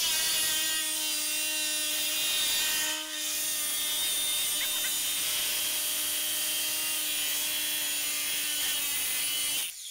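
Cordless DeWalt angle grinder with an abrasive cutoff disc cutting through metal: a steady motor whine over a loud grinding hiss. It dips briefly about three seconds in and stops just before the end.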